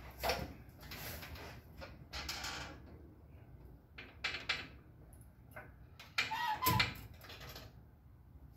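Floor jack being worked by its long handle: a string of irregular metal clunks and scrapes, the loudest about two-thirds of the way through.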